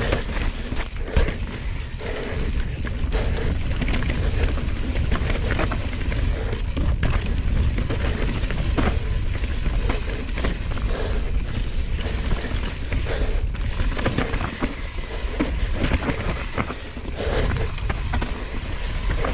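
Enduro mountain bike descending a steep, rough trail: a steady rumble of tyres over rough ground, with frequent sharp knocks and rattles from the bike, and wind buffeting the microphone.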